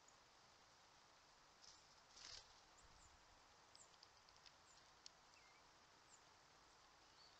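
Near-silent outdoor ambience with a steady faint hiss. A brief soft rustle comes about two seconds in, followed by a few faint, high, short bird chirps and a single small click.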